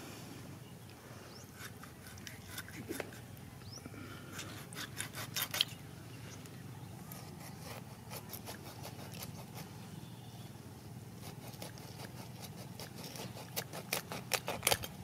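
A metal blade scraping the scales off a fish in quick runs of short strokes, two bursts of them about five seconds in and near the end, with a few single scrapes between.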